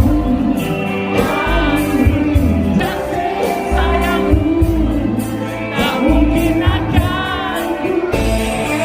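Live band music with singing over a steady drum beat and bass line.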